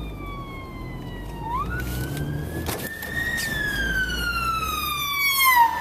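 Ambulance siren wailing: a single gliding tone that rises sharply about a second and a half in, climbs slowly to a peak near the middle, then falls slowly. Heard from inside a car, over the car's low engine and road rumble.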